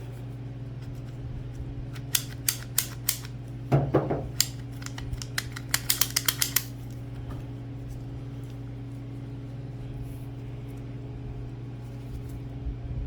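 Sharp clicks and snaps of the tailgate latch handle and its clip being worked loose by hand: a few spaced clicks, a cluster near four seconds, then a quick run of about six around six seconds in. A steady low hum runs underneath.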